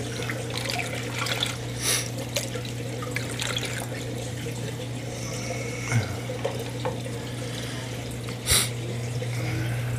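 Water running into a plastic container as it is filled, over a steady low hum. Two brief splashes or knocks, about two seconds in and near the end.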